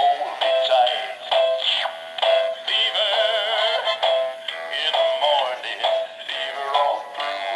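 Cuddle Barn animated plush frog singing a recorded song through its built-in speaker, thin and tinny with no bass.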